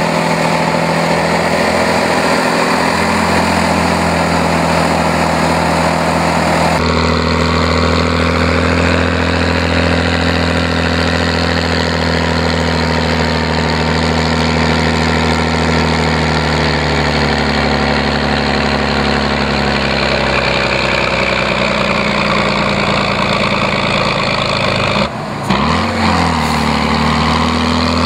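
A heavy off-road trial truck's diesel engine running continuously at low, varying revs as the truck crawls through deep ruts, its pitch slowly rising and falling. The sound changes abruptly about seven seconds in and drops out briefly near the end.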